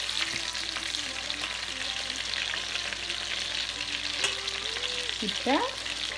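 Chopped garlic sizzling in melted butter and oil in a stainless steel pot as it fries toward golden, stirred with a metal spoon. A steady hiss, with a single sharp click about four seconds in.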